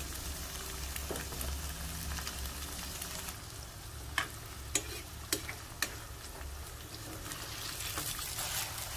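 Diced firm tofu sizzling as it fries in oil in a pan, stirred with a metal spoon that clicks sharply against the pan four times around the middle.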